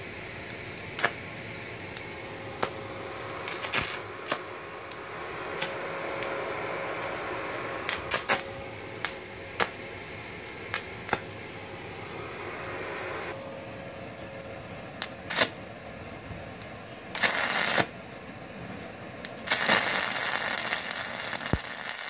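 Stick (MMA) welding arc from a small inverter MIG/MMA/TIG 160 A welder: struck briefly about two-thirds of the way through, then struck again and running with a rough, sputtering crackle near the end, the loudest sound here. Before that comes a steady low hum with scattered sharp clicks, and a few handling knocks.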